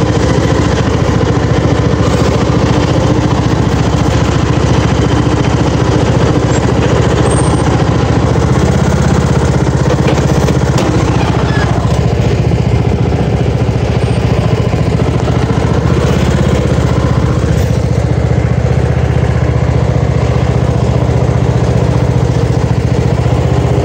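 Craftsman riding lawn mower's engine running steadily as the mower drives along, loud and close.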